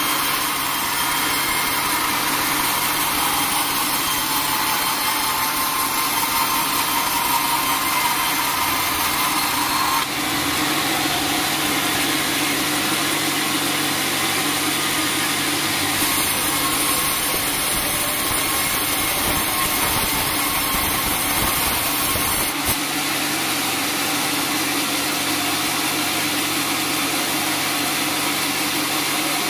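Band sawmill blade cutting through teak with a steady, continuous sawing noise. The sound shifts abruptly about a third of the way in and again about three quarters through.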